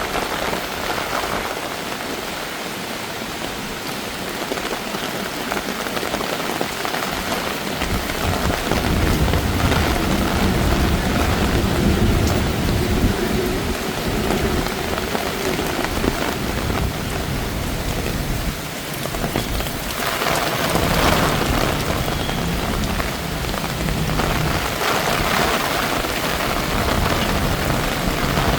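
Heavy monsoon rain pouring down steadily. From about eight seconds in, a low rumble joins it and stays.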